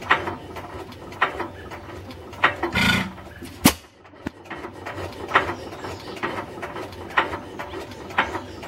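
1908 Sta-Rite 4.5 horsepower stationary gas engine running slowly, a sharp pop or click coming about once a second, with a louder, longer burst about three seconds in.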